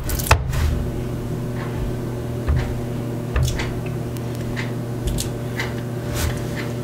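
Silicone spatula stirring thick, wet glue slime in a ceramic bowl: irregular squelches and scrapes, with a sharp tap of the spatula against the bowl just after the start.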